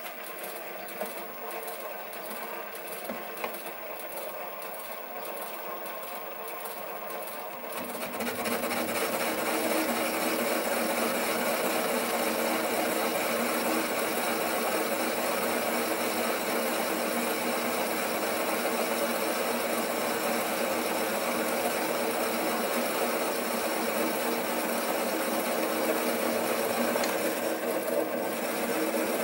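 Sieg SC3 mini lathe running, its motor and gearing making a steady whine as it spins a four-jaw chuck. The sound grows louder and noisier about eight seconds in and stays at that level.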